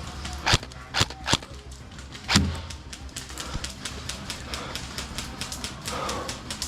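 Airsoft gunfire: four loud single cracks in the first two and a half seconds, then a rapid string of fainter shots.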